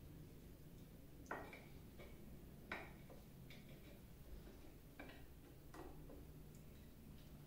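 A few faint, separate metallic clicks, about four spaced a second or two apart, from a hand wrench turning bolts on the taper attachment of a lathe.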